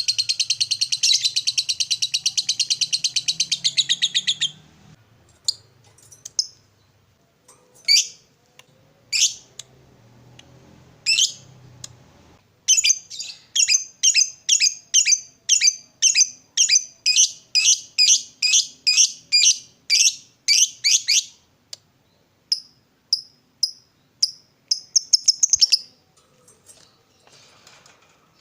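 A lovebird's ngekek: a long, very fast shrill chattering trill for the first four or so seconds. It is followed by sharp single high chirps, then a steady run of about three chirps a second, ending in a quick burst of chirps.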